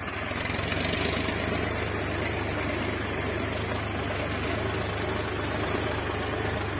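Solis Yanmar 4WD tractor's diesel engine running steadily under load while it pulls a three-bottom reversible mouldboard plough through hard soil.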